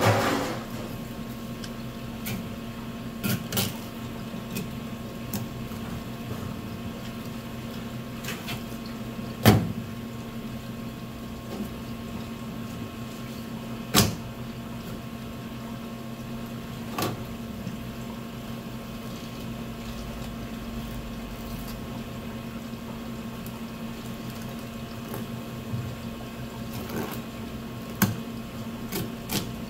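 Knife work and handling of a large olive flounder on a plastic cutting board: scattered soft taps and knocks as the blade meets the board and the fish is shifted and turned, the sharpest a little before ten seconds and at about fourteen seconds. A steady electrical hum of kitchen equipment runs underneath.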